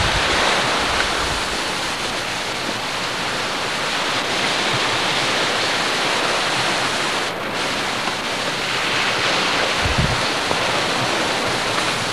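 Steady rushing of wind and surf on a camcorder's microphone, with a brief low buffet of wind against the microphone about ten seconds in.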